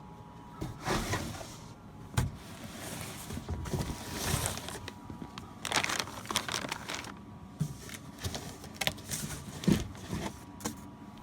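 Cardboard box and packaging being handled: irregular rustling and scraping with a few sharp knocks as the RC truck is worked out of its box.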